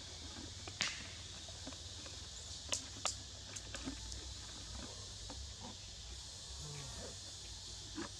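Outdoor forest ambience: a steady high hiss, typical of an insect chorus, with a few sharp clicks, one about a second in and a quick pair near three seconds.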